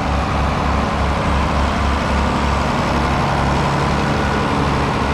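Tractor engine running steadily with a low throb.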